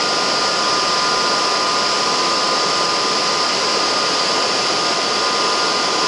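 Centrifugal compressor demonstration unit running steadily at about 12,000 rpm: a loud, even rush of air with a few steady high whining tones over it.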